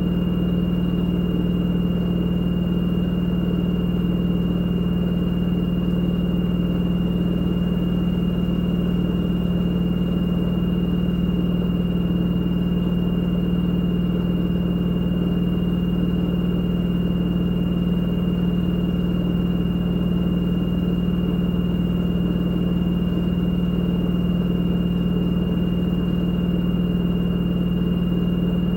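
LG direct-drive front-loading washing machine on its spin cycle, the drum spinning at a steady speed: an even low hum with a thin, steady high-pitched whine over it.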